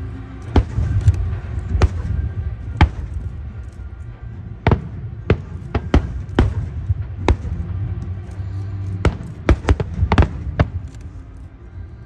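Aerial fireworks bursting: an irregular series of sharp bangs over a low, continuous rumble.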